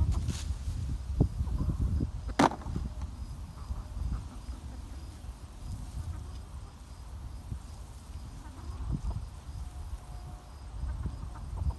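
Digging in garden soil: low scuffing and thudding of a tool and hands working the dirt, with one sharp knock about two and a half seconds in.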